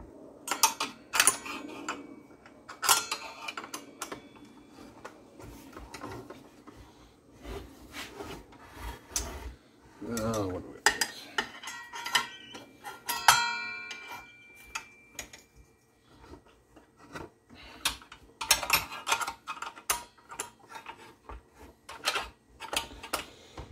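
Metal clinks, knocks and scraping of tools and parts while the blade is taken off a Craftsman circular saw. One clink about thirteen seconds in rings briefly.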